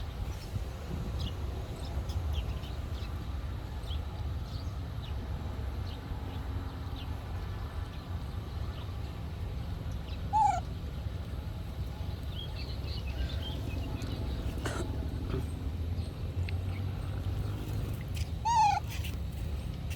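Two short, loud animal calls, each one pitch-bending cry about half-way through and near the end, over a steady low rumble with faint chirps.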